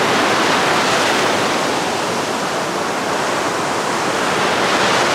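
Steady, loud rushing of water, an even wash of noise with no distinct events.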